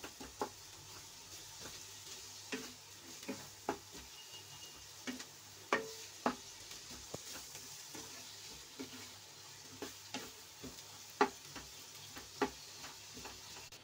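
Spatula stirring chopped onions in melting butter in a non-stick kadhai: irregular scrapes and knocks against the pan over a faint, steady sizzle.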